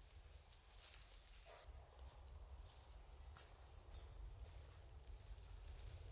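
Near silence: faint outdoor background with a low rumble and a few soft ticks.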